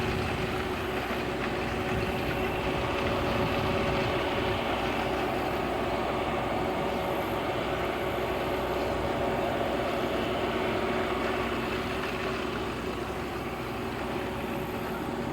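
Farm harvesting machinery running steadily: a continuous engine and machine drone with a constant hum.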